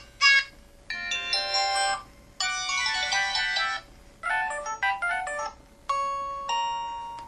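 IM-7400 mobile phone's built-in ringtones and effect sounds, played one after another: about five short electronic chime phrases of stepped tones, each cut off after a second or so with brief gaps between.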